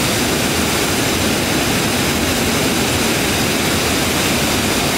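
Water of Leith pouring over a broad weir: a loud, steady rush of falling water.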